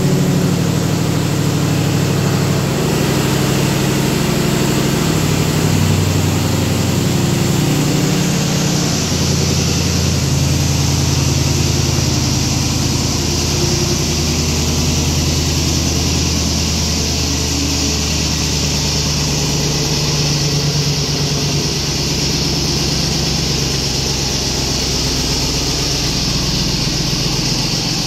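Supercharged 6.2-litre V8 of a Ram 1500 TRX running at a steady idle, its note wavering slightly now and then.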